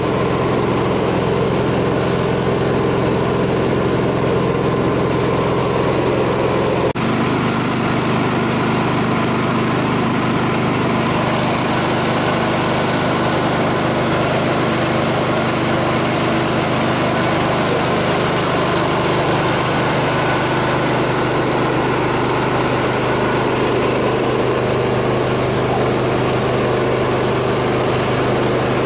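A small motor running steadily, with a brief dip and a slight change in its pitch about seven seconds in.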